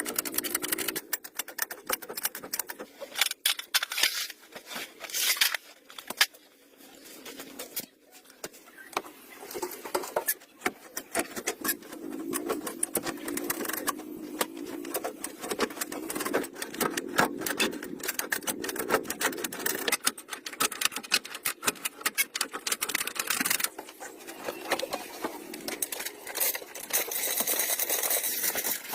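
Hand tools working on metal parts: rapid, irregular clicking and clinking of metal on metal, continuing throughout.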